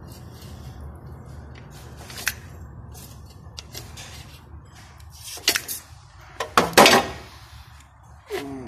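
Metal clinks and knocks of a piston and connecting rod being handled in an engine cylinder bore alongside a feeler gauge: one sharp clink about two seconds in, then a cluster of sharper knocks between about five and a half and seven seconds, over a low steady hum.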